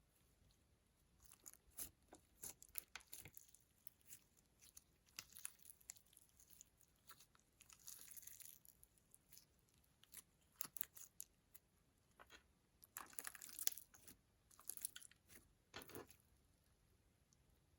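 Slime being squeezed and stretched by hand, giving irregular bursts of soft sticky crackles and pops with quiet gaps between them.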